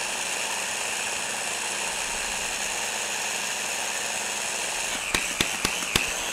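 Electric countertop blender running steadily, breaking down quartered onion into a thick mayonnaise dipping sauce. Near the end come four sharp clicks.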